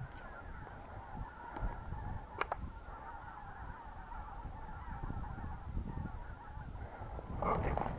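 A large flock of wild geese calling in a continuous chorus of honking, growing louder near the end. One sharp click comes about two and a half seconds in.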